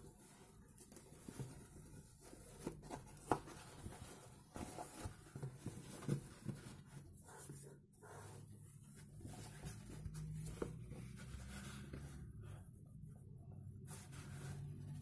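Hands handling a cotton baseball cap: soft fabric rustling and rubbing with scattered small clicks, the sharpest about three seconds in. A faint low hum sits underneath in the second half.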